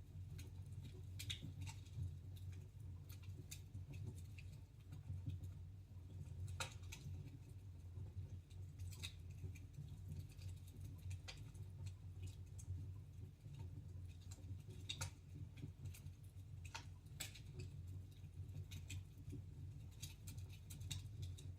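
Wood fire crackling in a fireplace: faint, irregular sharp pops and snaps over a low steady rumble.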